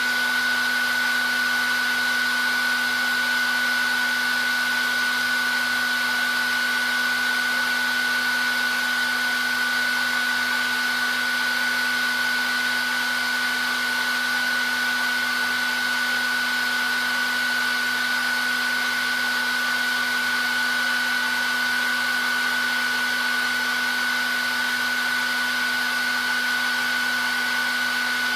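Hair dryer running steadily. A constant high-pitched whine and a lower hum sit over the even rush of blown air, with no change in speed.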